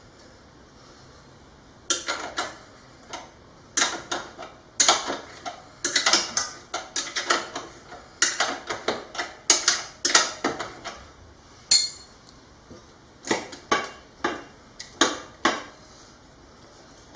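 Metal hand tools clicking and clinking in quick irregular bursts as the exhaust nuts on a 1978 Suzuki TS125 are tightened. The clicks start about two seconds in and stop shortly before the end.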